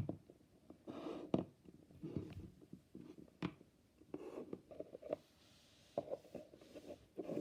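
Faint handling noise: irregular soft taps, clicks and rustles, as of small objects being moved about on a surface.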